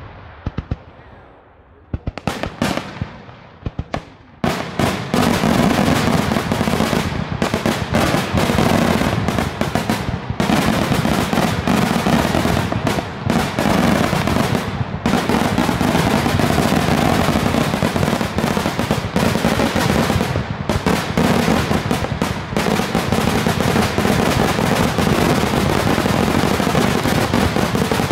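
Daytime display fireworks: a few separate bangs in the first seconds, then from about four seconds in a continuous dense barrage of rapid bangs and crackling reports.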